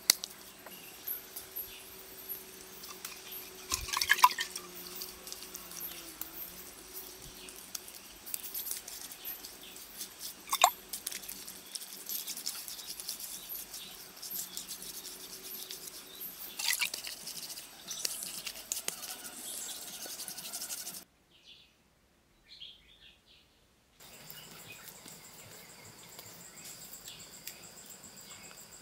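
Wet mud being pressed and smoothed onto a wall by hand, with soft squelches and a few sharper wet slaps; insects chirp behind it. The sound drops out for a few seconds about three-quarters of the way through.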